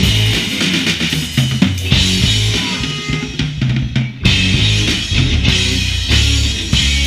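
Drum kit played hard and fast: kick drum, snare and cymbals in a dense, loud pattern, with a brief break about four seconds in before the hits resume.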